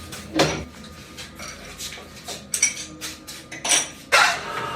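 Metal clanking in a workshop: four or so sharp knocks of metal tools or parts struck or set down against each other, at irregular intervals, each with a short metallic ring.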